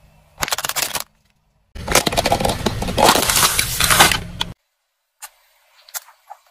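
Car tyre rolling over and crushing objects in quick succession. A plastic mask cracks briefly about half a second in. A heap of small pink pellets then crunches and rattles for a couple of seconds, and near the end plastic tubes of cream burst and squirt with a few short pops.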